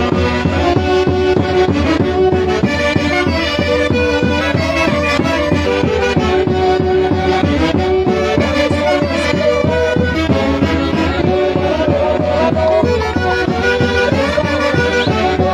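Peruvian folk orchestra playing a santiago tune: a melody of held notes over a steady beat.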